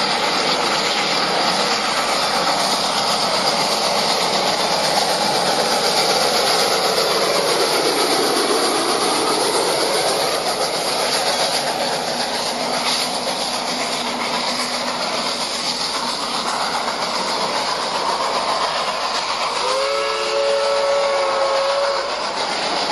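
Union Pacific 4-8-4 Northern steam locomotive #838 and its train running by, a steady loud rush of wheel and steam noise. About twenty seconds in comes a roughly two-second blast of its three-chime steam whistle.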